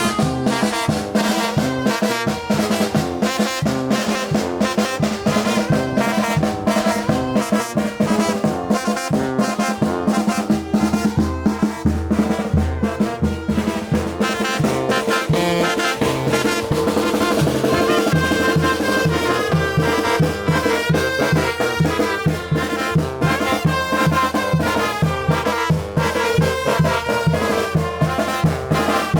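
Mexican brass band (banda de viento) playing a chilena: trumpets and trombones carry the melody over a steady bass line and drums.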